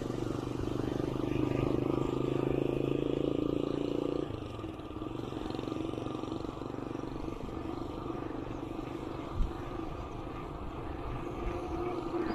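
Small motorcycle engine running steadily close by, its sound dropping away suddenly about four seconds in as the bike pulls ahead, leaving a fainter engine rumble. A single sharp knock comes later on.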